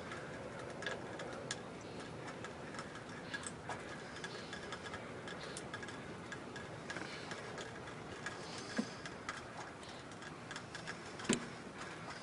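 Outdoor ambience in a snowy landscape: a soft steady hiss with many light, irregular ticks and clicks, the loudest a sharper click about eleven seconds in.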